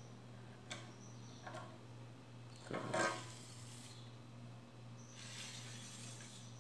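Quiet handling noises from a fishing rod being held and flexed: a couple of faint clicks, a short louder rustle about three seconds in, and a soft hiss near the end, over a steady low hum.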